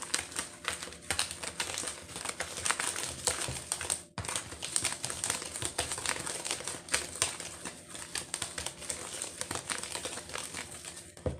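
Whisk stirring dry flour mix in a plastic bowl: a fast, irregular run of scratchy ticks and swishes as the wires scrape through the flour and knock the bowl, with a brief pause about four seconds in.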